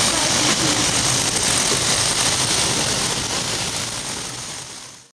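Narrow-gauge forest train running: steady rumble and rattle of the carriage on the track with the locomotive ahead, fading out near the end.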